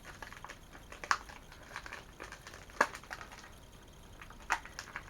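A comic book being handled, with light rustling and crinkling of paper and three sharp crackles, about one, three and four and a half seconds in.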